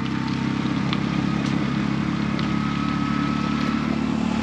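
Tuk tuk engine running steadily as it drives along, heard from inside the cab.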